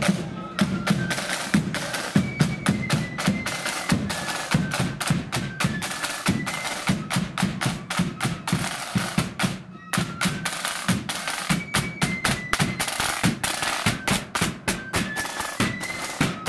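Marching flute band playing a tune on flutes over rattling side drums and a bass drum. The band breaks off briefly about ten seconds in, then starts the tune again.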